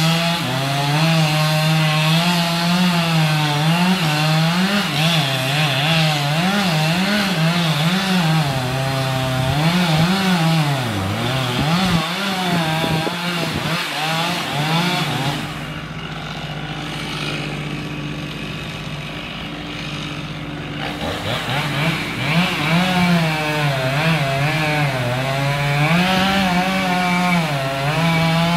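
Chainsaw cutting into a tree trunk, its engine speed rising and falling as the chain bites. For several seconds past the middle it eases to a quieter, steady run, then it speeds up and cuts again near the end.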